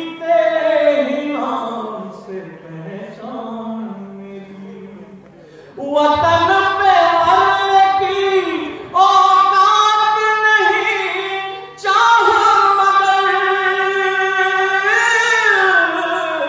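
A man singing a Hindi geet in long held notes, amplified through a stage microphone. He starts softly, then sings out louder from about six seconds in.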